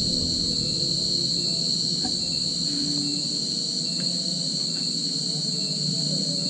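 Insects, crickets by the tags, chirring in a steady high-pitched chorus that holds unbroken.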